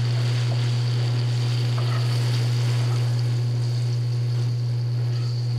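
Breaded rock cod fillets frying in hot oil in a cast-iron skillet: a steady sizzle, over a loud, steady low hum.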